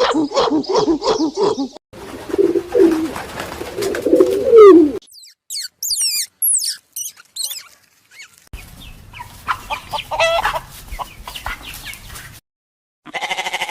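A run of short, separate animal-call clips cut one after another: fast repeated calls, a lower call that slides down, high quick chirping bird song, then more pitched calls of fowl or birds.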